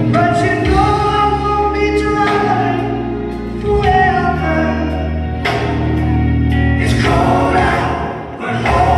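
Choral music: a choir singing held, chord-like lines over steady low bass notes.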